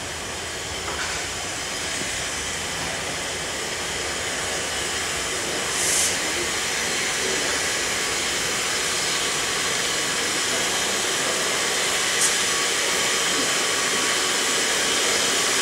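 Steam locomotive hissing steadily and slowly growing louder, with a short sharper burst of hiss about six seconds in and a brief click near the twelve-second mark.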